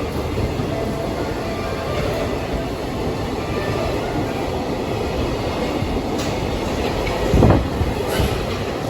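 A train running past on the rails with a steady, loud rumble of wheels on track, and two heavy knocks near the end.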